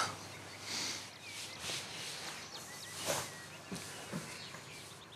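Soft rustling of clothing as two people embrace, with a few faint bird chirps.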